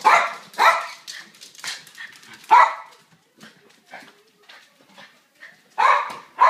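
A dog barking in play while chasing another dog for a toy: short sharp barks, about four loud ones in the first three seconds, a few fainter ones, then two loud barks near the end.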